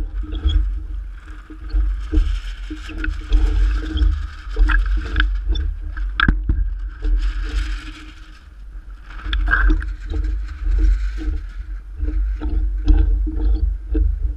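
Wind buffeting the microphone with a heavy, uneven rumble, while choppy water slaps and gurgles right at the microphone. Irregular splashing knocks come and go.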